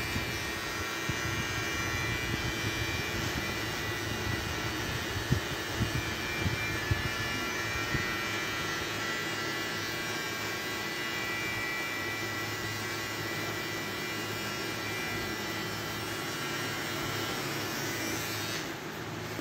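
Electric beard trimmer buzzing steadily as it cuts the neckline hair below the beard, with a few light knocks of the blade against the skin and chin, cutting off near the end.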